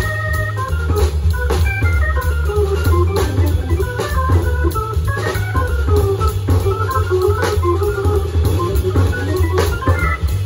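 Live jazz on a dual-manual Hammond-style drawbar organ: a quick single-note right-hand line over a deep bass line. A drum kit played with sticks keeps time with frequent cymbal and snare strokes.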